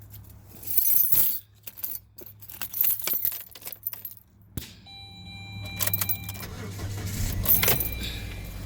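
Car keys jangle and click as the ignition key goes in and turns on a Saturn Ion. Steady electronic dashboard tones come on about five seconds in, and near the end the engine cranks, starts and settles into a steady idle.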